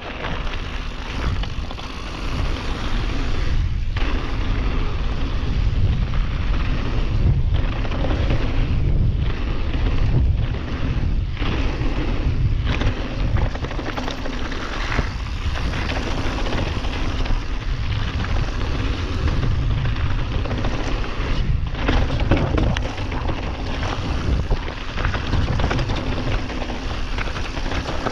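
Mountain bike riding fast down gravel and dirt trails: tyres rolling over loose stones and dirt under heavy wind rumble on the camera's microphone, with frequent brief dips in the noise.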